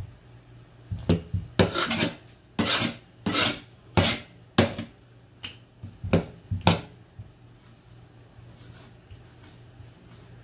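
Chinese cleaver blade scraping and slicing along cleaned squid on a wooden chopping board: about ten quick strokes over some six seconds, then it stops.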